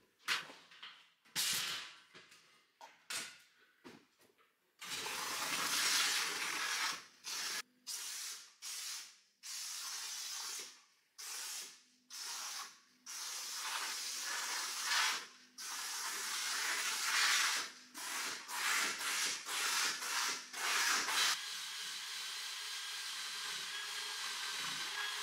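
A hose-fed hand-held cleaning unit hisses in stop-start bursts as its nozzle is worked over a rough stone wall. In the last few seconds it runs continuously, with a steady whine over the hiss.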